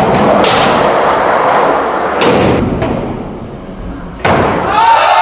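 Skateboard rolling with hard board clacks, then a sudden loud slam of a skateboard landing about four seconds in, followed by shouting.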